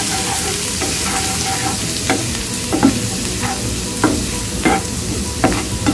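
Minced garlic sizzling in hot sunflower oil in a frying pan, with a spatula stirring and scraping against the pan about once a second.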